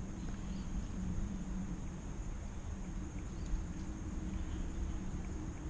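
Steady outdoor background noise: a low rumble with a faint steady high-pitched hum, and no distinct events.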